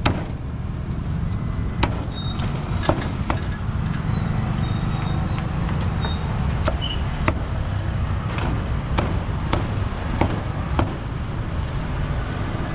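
Heavy cleaver chopping crispy roast pork on a thick wooden chopping block: sharp, irregular knocks roughly once a second, over a steady low rumble of road traffic.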